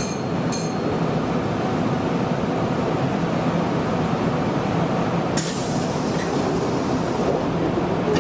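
3000-series electric commuter train running on the line, heard from the driving cab: a steady rumble of wheels on rail with a low drone underneath. A higher hiss joins for about two seconds, a little past the middle.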